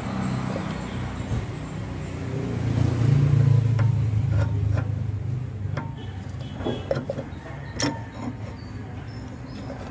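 A motor vehicle's engine rumbling near the work, swelling about three seconds in and then fading. From about four seconds in come scattered light metallic clicks and knocks as a rack-end removal tool is fitted and shifted on the steering rack's inner tie rod.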